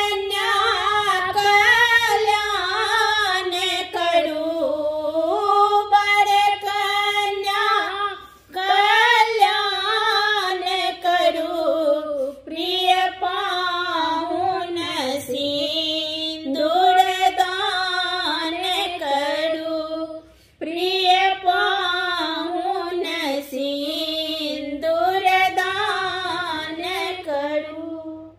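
Two women singing a Maithili wedding song together, unaccompanied, in long sung phrases broken by short pauses for breath.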